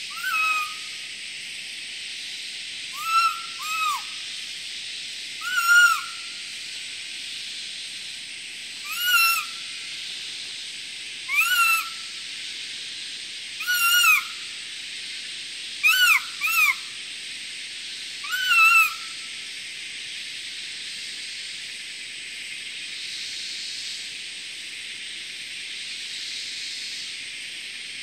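A hunter's call for luring barking deer, blown with the hands at the mouth: about ten short whistled notes, each rising and falling in pitch, some in quick pairs, every two to three seconds. They stop about two-thirds of the way through, leaving only a steady high hiss.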